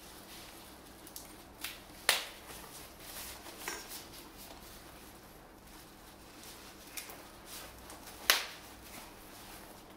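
Bubble wrap and plastic packaging crinkling as it is pulled off a bicycle suspension fork, with scattered sharp snaps; two loud ones come about two seconds in and near the end.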